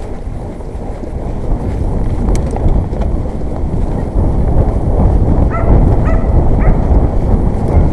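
Mountain bike rolling over rough trail, heard as a loud, steady low rumble of tyre, frame and wind noise on an action camera's microphone, growing louder a little over a second in. About two-thirds of the way through come three short high calls about half a second apart.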